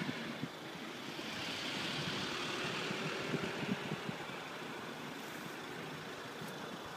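Road traffic: a vehicle passing, its tyre and engine noise swelling about a second and a half in and then slowly fading.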